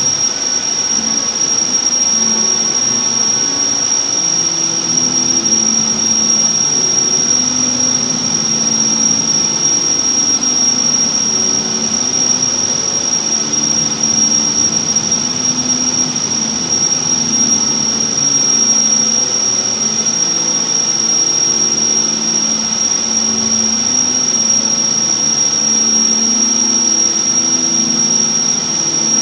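Steady road and engine noise of a car driving, heard inside the cabin, with a constant high-pitched whine over it.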